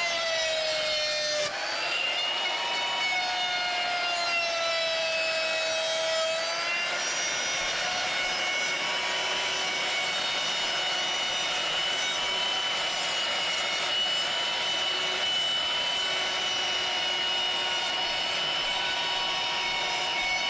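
Electric power tool motor running with a steady whine over a rough grinding hiss. Its pitch dips and shifts several times in the first several seconds as the tool works against the material, then holds steady.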